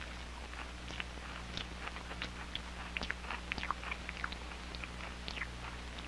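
Soft, scattered clicks and brief squeaky chirps from an old 16mm film soundtrack, over a steady low hum.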